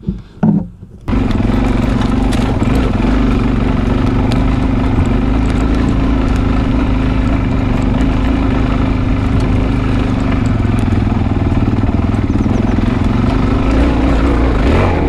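Dirt bike engine starting about a second in after a couple of short bursts, then running steadily as the bike is ridden.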